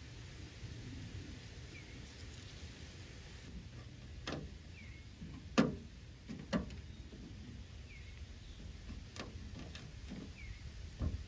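Knife cutting frog legs and knocking on the hard surface beneath: several sharp knocks, the loudest about five and a half seconds in. Behind them is a low steady rumble, and a bird chirps faintly a few times.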